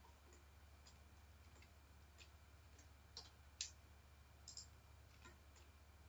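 Near silence with faint, scattered clicks from a computer mouse and keyboard, about ten short taps, the loudest about three and a half seconds in, over a low steady hum.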